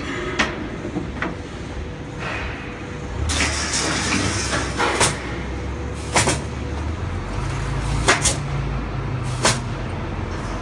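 Wooden glass crates being handled and secured inside a steel shipping container: a scrape a few seconds in, then sharp knocks and bangs against the crates and container, over a low steady hum.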